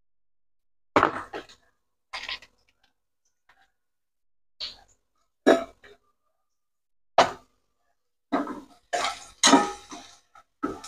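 Scattered short sharp sounds, then, from about eight seconds in, a wooden spatula stirring chopped garlic in hot oil in a nonstick wok, a quick run of scrapes and knocks against the pan.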